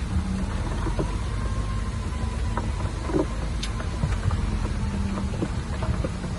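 Heavy diesel earthmoving machinery running steadily, with scattered short knocks and clanks of metal and stone.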